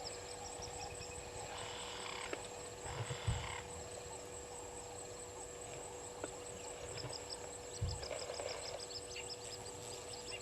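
Bush ambience of birds calling over a steady high insect drone, with quick runs of high chirps and two dull low thumps, about three seconds in and near the end.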